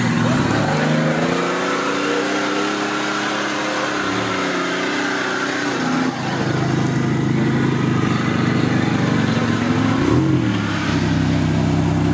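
Engine of a modified off-road 4x4 revving under load as it climbs a steep concrete slope, its pitch rising and falling; a steadier engine note takes over about halfway, with a brief rev near the end.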